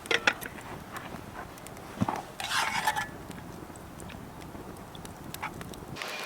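Metal cooking utensils clinking and knocking against a cast iron skillet, with a brief hiss about two and a half seconds in.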